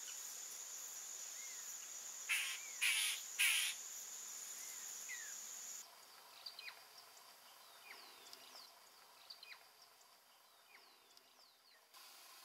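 Riverside forest ambience: a steady high insect trill with three short, harsh calls about two to four seconds in and faint short falling chirps. About six seconds in the trill stops, and only faint falling chirps go on.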